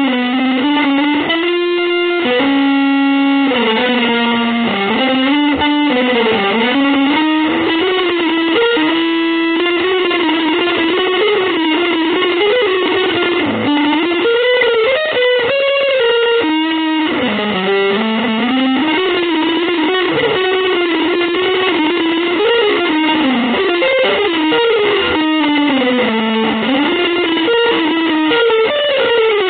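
Electric guitar with distortion and effects playing one continuous, winding melodic line that slides up and down in pitch.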